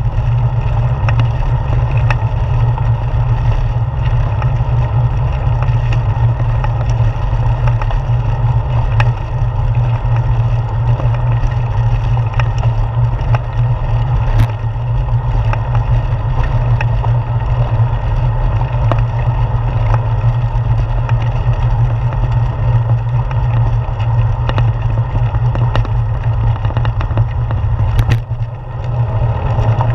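Steady low rumble and road noise of a bicycle rolling over a brick-paved street, carried through the handlebar into the mounted camera, with a few sharp clicks and a short dip near the end.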